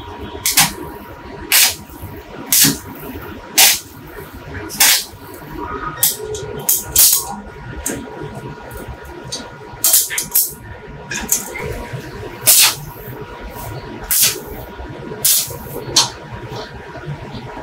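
Stick (MMA) arc welding with a ZX7 250 inverter welder: short arc strikes on a steel ring, each a brief sizzling crackle, coming irregularly about once a second.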